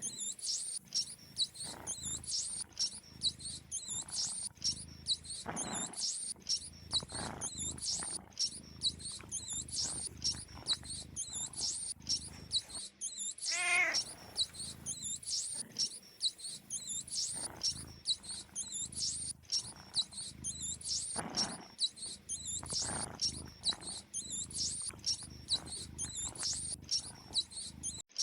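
Mice squeaking: a continuous stream of rapid high-pitched squeaks, with a louder, lower wavering call every few seconds.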